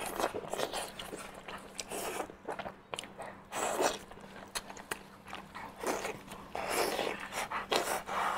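Close-miked eating of fatty braised intestine in thick sauce: irregular wet biting, sucking and chewing noises with smacks and clicks. A faint steady electrical hum runs underneath.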